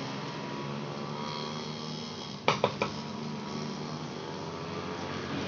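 A steady low hum with a hiss over it, broken a little before halfway by three quick sharp clicks.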